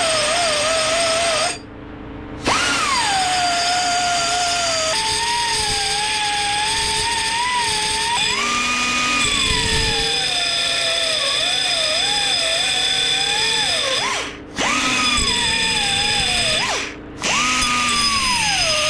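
Powered belt file running and sanding a metal bracket clamped in a vise, a steady grinding with a wavering pitch. It briefly drops off about two seconds in and twice more in the last five seconds.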